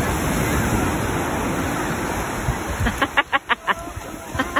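Surf washing onto a sand beach, a steady rushing. About three seconds in, a quick run of six or so short, sharp pitched pulses cuts through, louder than the surf, and another run begins near the end.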